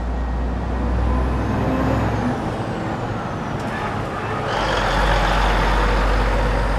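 Heavy truck driving past: a steady engine rumble with road noise, which grows louder and hissier about four and a half seconds in as the truck draws close.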